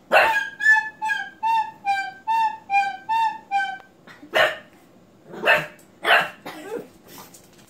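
Pug puppy barking at a recorder: one bark at the start, then a run of short tooted recorder notes for about three and a half seconds. When the recorder stops, the puppy barks three more times, with a fainter bark near the end.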